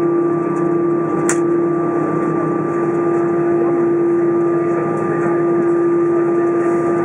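Steady cabin noise inside an Airbus A320 standing on the ground: a constant loud hum with a steady droning tone, and a single sharp click about a second in.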